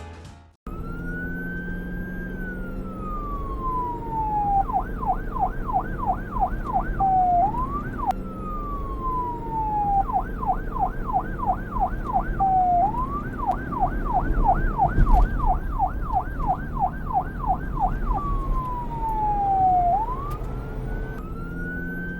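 Electronic police siren alternating between a slow wail, a tone sliding down from high to low, and a fast yelp of about three rapid up-and-down sweeps a second. It cycles wail, yelp, wail, yelp, wail over a steady low hum.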